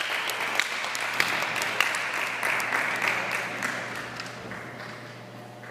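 Audience applause, the clapping gradually thinning and fading away towards the end.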